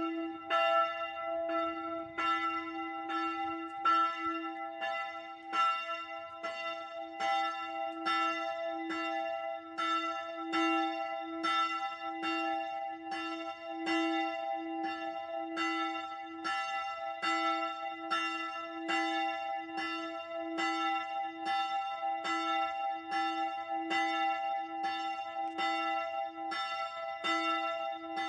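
The third bell of a church peal rung on its own: evenly spaced strokes, a little more than one a second, each one ringing on into the next with the same steady chord of tones.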